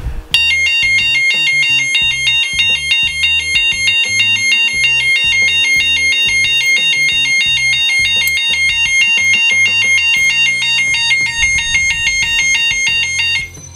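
A 12-volt auto-rickshaw electronic horn used as a touch alarm, set off by a touch on the wired lock. It sounds a loud, rapid warbling tune, flicking between two high pitches, and stops abruptly near the end.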